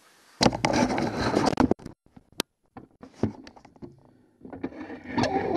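Handling noise: a burst of scraping and rattling, then a few sharp clicks and knocks, then more scraping.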